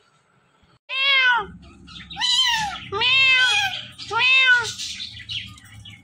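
Indian ringneck parakeet calling: four or five loud, arching squawks in quick succession, starting about a second in.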